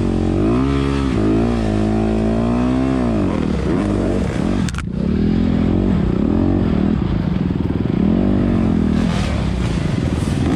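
Honda CRF250RX's single-cylinder four-stroke engine revving up and down again and again under load on a slow, steep dirt-bike climb, with a brief drop and a sharp click a little under halfway through.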